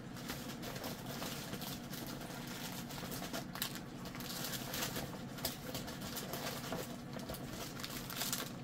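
Quiet room tone: a steady low hum with faint, scattered small rustles and ticks.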